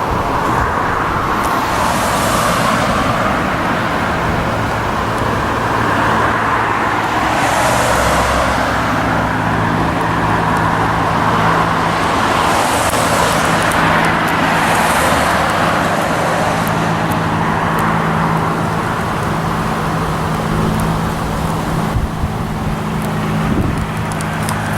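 Steady traffic noise with vehicles swelling past every few seconds, and a low steady engine hum entering about a third of the way in.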